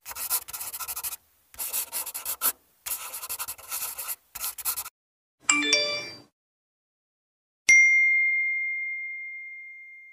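A run of cartoonish vlog sound effects: three bursts of rapid, scratchy clicking, then a short jingle of several bright tones, then a single high bell-like ding about three-quarters of the way in that rings on one note and slowly fades.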